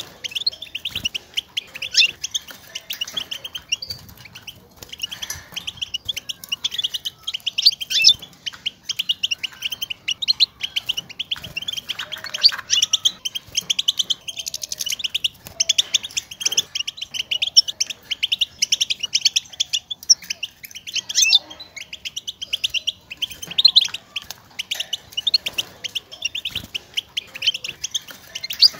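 European goldfinch twittering contact calls: a near-continuous run of rapid, high chirps with brief pauses. This is the calling goldfinches use to keep in touch and announce their presence, and it is played to stir caged males into song.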